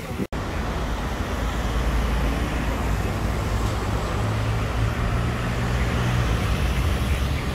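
Road traffic noise with a motor vehicle's engine running close by, a low steady hum strongest through the middle and easing near the end. The audio drops out for an instant just after the start.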